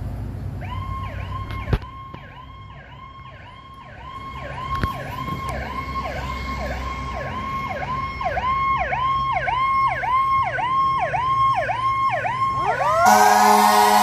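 Fire engine siren on an emergency response, a fast repeating wail of about two falling sweeps a second that grows louder as the truck approaches. Near the end a loud horn blast sounds and a second siren starts winding up in a rising whine.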